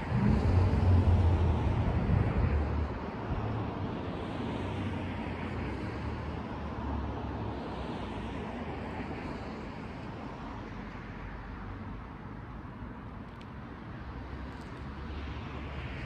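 Wind buffeting the microphone as a low rumble, strongest in the first three seconds, over a steady outdoor hiss that swells and fades a few times.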